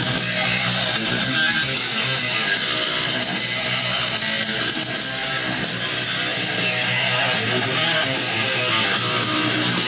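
Music with guitar played through a Gradiente BS-125 three-way loudspeaker (8-inch woofer, midrange and tweeter), at a steady level.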